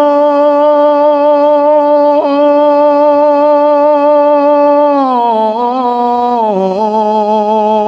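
Man singing a line of an Urdu ghazal in tarannum, holding one long note that wavers and dips in pitch about five seconds in, then settles again. A steady low drone sounds beneath the voice.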